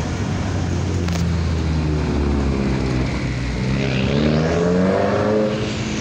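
Diesel engine of a White/GMC WX garbage truck revving up as the truck pulls off, its pitch climbing for a few seconds and easing off near the end. A brief sharp clank sounds about a second in.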